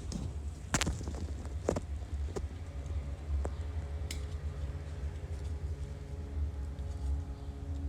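A handful of sharp metal clicks and scrapes from hand tools prying at the seals of a Mazda RX-8 rotor, over a steady low rumble.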